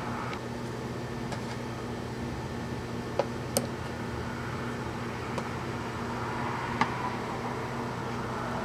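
Steady low hum and room noise, like a fan running. A few light clicks and taps from a ceramic tube socket being handled against a metal chassis panel stand out, the loudest about three seconds in and again near the end.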